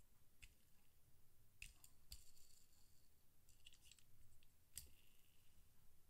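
Near silence with a few faint, scattered clicks and ticks from a small die-cast Jaguar F-Type toy car being turned over in the fingers as its wheels are checked for roundness.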